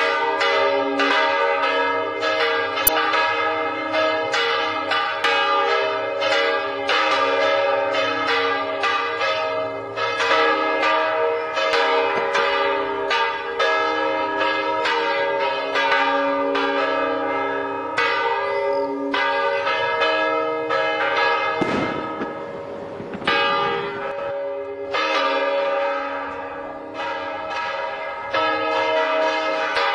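Church bells of the parish church ringing a festive peal, struck in quick succession at about two to three strokes a second, their tones hanging over one another. The strokes thin out briefly about two-thirds through, where a short rumbling noise sounds, then the ringing picks up again.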